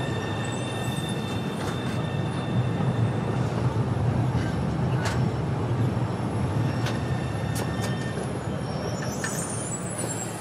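Articulated tram passing close by on street track: a steady rumble of its wheels on the rails, with a few sharp clicks and a faint high whine during the first few seconds.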